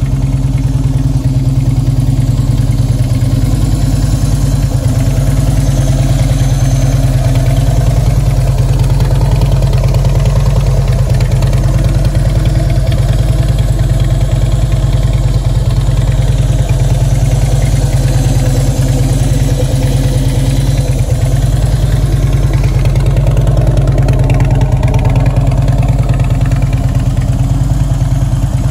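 Motorcycle engine idling steadily and loudly.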